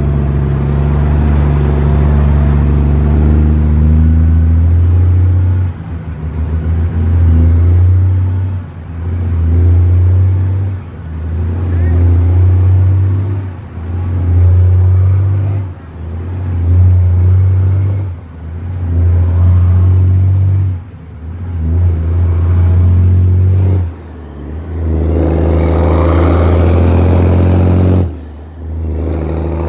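Western Star truck's diesel engine pulling through a run of gear changes. The engine note builds, drops off briefly about every two to three seconds as a gear is changed, then builds again. A faint rising turbo whistle comes with each pull.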